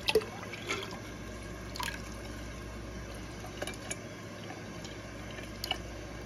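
Water trickling and dripping as jars of sprouting seeds are rinsed and drained, with a few sharp clicks, the loudest just after the start.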